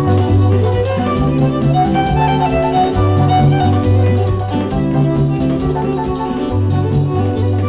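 Jazz recording with a violin playing the melody over a band accompaniment with deep, held bass notes.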